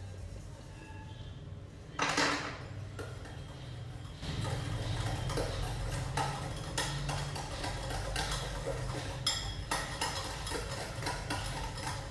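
Wire whisk beating curd and powdered sugar in a metal bowl: a quick, uneven run of clinks and scrapes against the bowl, starting about four seconds in. There is one louder clatter about two seconds in.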